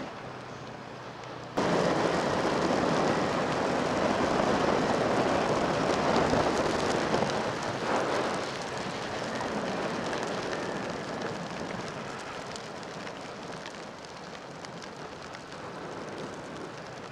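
Steady rushing noise of rain and wind on a helmet-mounted microphone while riding. It starts suddenly about a second and a half in and eases off towards the end.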